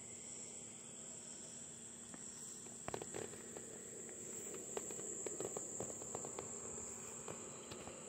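Crickets trilling steadily in a high, even chorus. From about three seconds in, a scatter of soft clicks and rustles sits over it.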